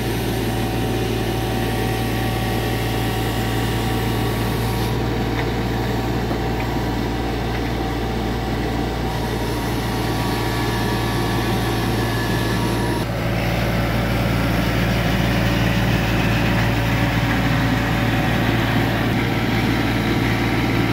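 Kubota U25 mini excavator's diesel engine running steadily while its hydraulic drive head turns a helical pier into the ground. The engine is a little louder from about thirteen seconds in.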